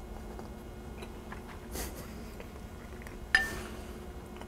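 A fork clinks once against a plate, a sharp tap with a brief ring about three seconds in, over a faint steady hum.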